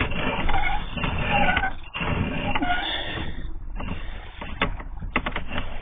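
Sewer inspection camera's push cable being pulled back by hand through the line: uneven scraping and rattling of the rod, with a run of sharp clicks about five seconds in.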